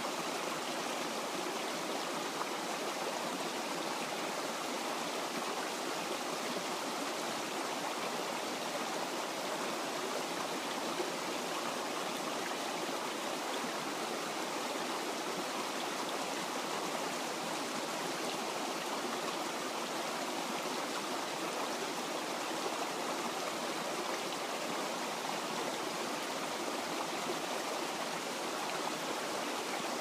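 Small creek running steadily over rocks, splashing in a little cascade into a pool.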